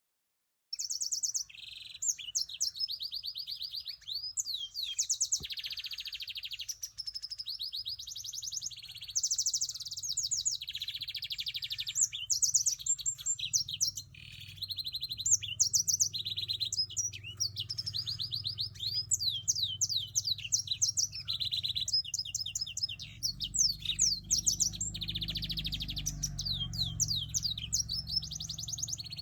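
Canary mule (a black-throated × Timbrado canary cross) singing a long, nearly unbroken song of fast high trills and rolls, with rising and falling notes in between. A low hum runs underneath, growing louder in the second half.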